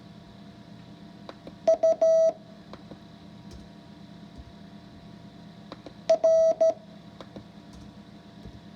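Morse code practice tone keying two characters about four and a half seconds apart, each a quick group of short and long beeps (dits and dahs) on one steady pitch, over a faint background hum.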